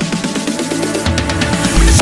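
Dance music with a quick repeating beat, switching about halfway through to a different electronic track with a heavy, pounding bass beat.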